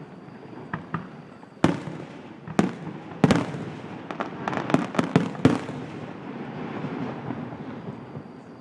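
Aerial fireworks bursting: a string of sharp bangs, densest through the middle, with crackles and a rolling rumble between them that dies away near the end.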